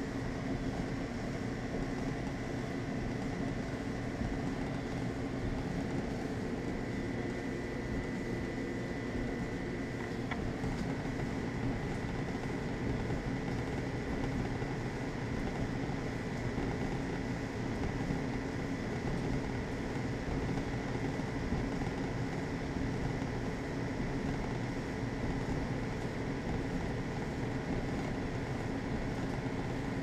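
Electric clothes dryer running with a dehumidifier's compressor ducted into it as a homemade heat pump dryer, drum, blower and compressor going together: a steady mechanical hum with a faint high whine.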